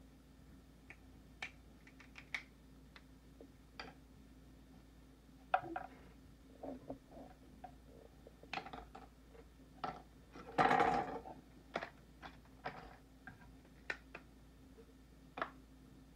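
Shell of a cooked lobster being cracked and picked apart by hand: scattered light clicks and snaps of shell, with one longer crunch a little over ten seconds in.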